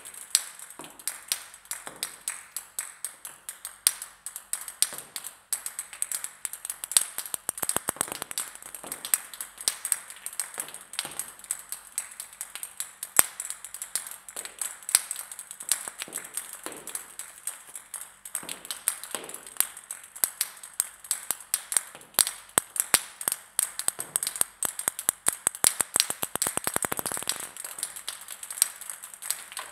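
Table tennis balls bouncing on a hard floor: many sharp hollow ticks from several balls at once. Twice a ball's bounces speed up into a quick rattle as it settles.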